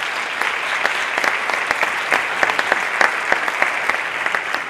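Audience applauding: many hands clapping loudly and steadily.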